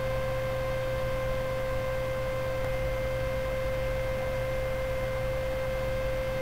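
Steady electrical hum with a constant mid-pitched tone and its fainter overtones above it, unchanging throughout.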